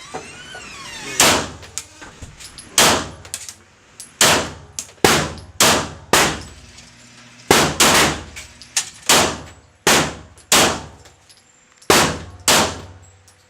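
Gunfire: about fifteen sharp gunshots at an uneven pace of roughly one a second, each followed by a short ringing decay.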